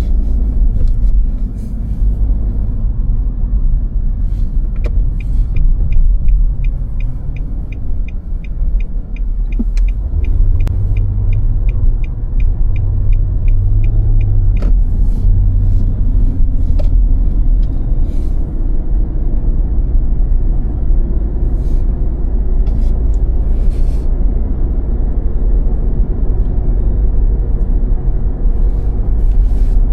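Car driving on snowy roads, a steady low rumble of engine and tyres. From about five seconds in, a regular ticking comes about three times a second for roughly ten seconds.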